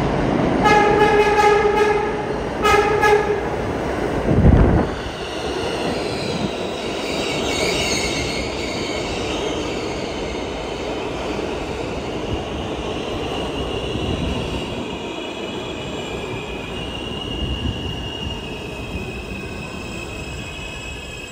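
R160 subway train entering the station: its horn sounds two blasts, the first longer than the second. A low thump follows about four and a half seconds in. The train then rolls past along the platform with a high squeal as it brakes to a stop.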